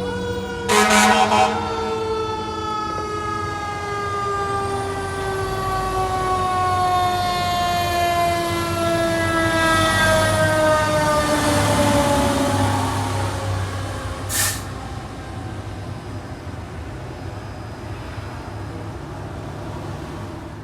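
Fire engine siren winding down, its pitch falling slowly over about thirteen seconds, over the truck's low engine rumble. A short, loud blast comes about a second in, and a brief sharper burst follows about two thirds of the way through.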